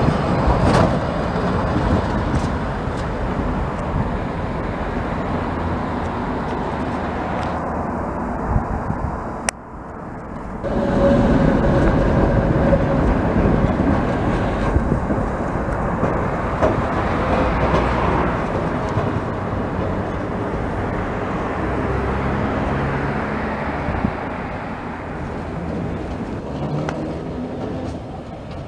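Historic wooden tram running on street track, its wheels rumbling over the rails with scattered clicks as it passes close. After a sudden break in the sound about ten seconds in, the tram is heard approaching and rounding a curve, slowly fading.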